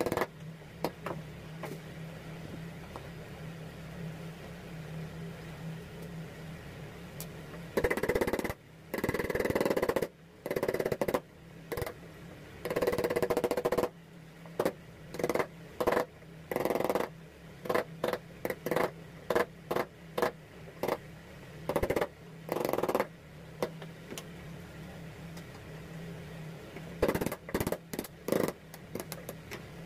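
Hand chisel paring and chipping a hardwood handle blank held in a bench vice: irregular bursts of scraping cuts and short sharp knocks, with pauses between, over a steady low hum.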